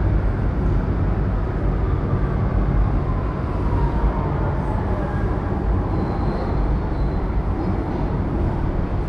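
New York City subway train running alongside the platform: a steady, heavy low rumble, with a faint whine that slides gently down in pitch midway through.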